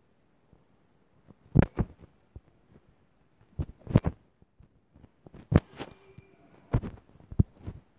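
Irregular dull thumps and knocks from fingers tapping and handling a phone, picked up by the phone's own microphone, several of them coming in quick pairs.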